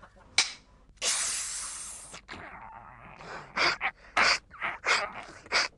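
A person's breathy vocal noises: a long hiss lasting about a second, then a run of short, sharp gasps or snorts.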